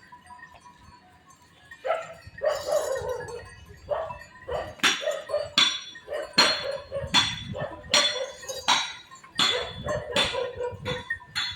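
A dog barking over and over, the barks coming steadily a little more than one a second from about four seconds in, after a longer call around two seconds in.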